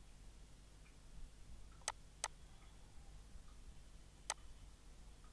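A few faint, sharp clicks over quiet room tone: one at the start, two close together about two seconds in, and another about four seconds in, as from the input device while a box is drawn on the slide.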